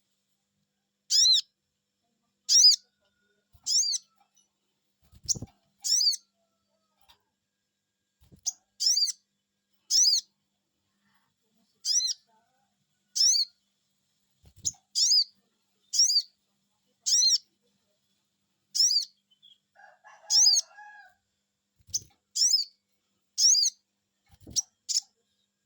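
Sogon bird calling 'cuiit cuiit': short, high whistled chirps, each rising then falling in pitch, repeated about once a second in loose runs of two or three. It is the lure call used to prompt a reluctant sogon to answer.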